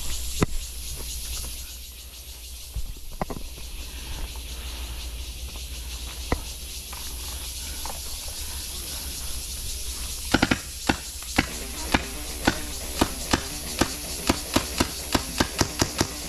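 A toy blaster firing a run of single shots: sharp pops about two a second, quickening to about three a second over the last few seconds, with a few lone pops earlier. A steady hiss runs underneath.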